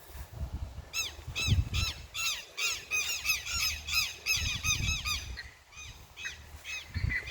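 A flock of birds calling in quick, overlapping squawks for about four seconds, then a few scattered calls, over low rumbling on the microphone.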